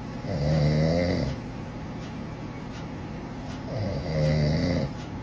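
A man snoring: two long snores about three seconds apart, each with a deep buzzing pitch, over a steady background hiss.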